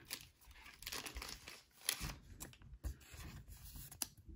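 Trading cards being handled and one slid into a soft plastic sleeve: faint crinkling of the sleeve with a few light clicks and taps of card stock.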